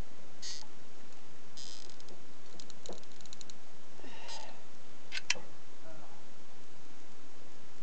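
Scattered light clicks and ticks, including a quick run of small ticks, then a sharper click about five seconds in.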